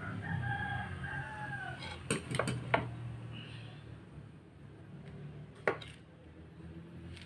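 A rooster crows once, a call of about a second and a half with a falling end. Then come a few sharp metallic clinks from the transmission case halves being handled: three close together, and one more a few seconds later.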